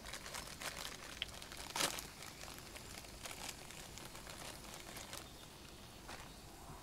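Plastic food packet crinkling and rustling as it is handled, with light clicks of cutlery and plates; a string of short rustles and clicks, the loudest about two seconds in.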